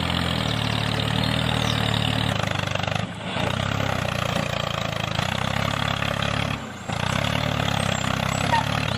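A steady, low engine sound like a tractor idling, cutting out briefly twice, about three and about seven seconds in.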